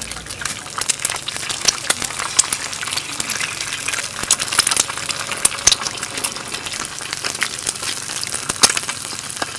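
Eggs frying in oil on a hot round griddle pan: a steady sizzle full of sharp pops and crackles, while more eggs are cracked onto it. One louder snap comes near the end.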